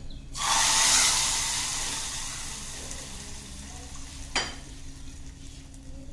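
Hot oil tempering with spices poured into chutney, sizzling loudly from about half a second in and dying away over a few seconds. A short sharp knock a little after four seconds in.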